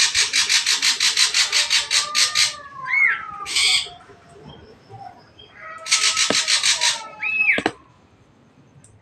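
Ashy drongo calling: a long burst of fast, harsh rattling chatter, then a short whistle that rises and falls, a brief harsh note, and a second, shorter rattle followed by another arched whistle.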